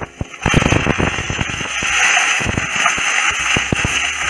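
Brinjal pieces frying in hot mustard oil in a non-stick pan: a steady sizzle with many sharp pops of spattering oil, building up about half a second in.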